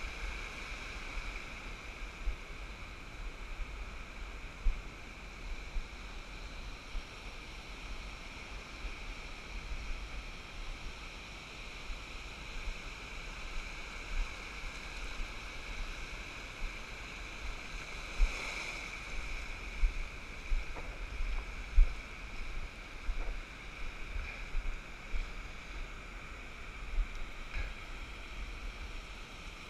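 Small surf breaking and washing up a sandy beach, with wind buffeting the microphone in irregular low thumps.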